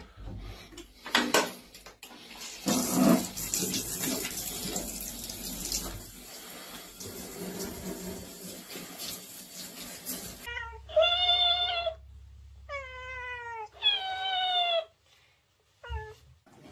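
Tap water running into a sink, which stops abruptly after about ten seconds. Then a cat meows three times in long calls, the middle one falling in pitch.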